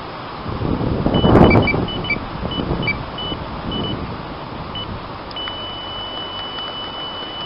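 Electronic carp bite alarm giving short irregular bleeps, then a continuous tone from a little past five seconds in as line is pulled through it: a carp taking the bait and running. A loud rushing noise fills the first few seconds.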